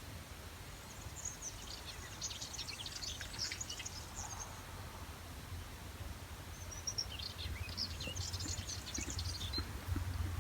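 A songbird singing two bursts of quick, high chirping notes, the second starting about halfway through, over a steady low rumble.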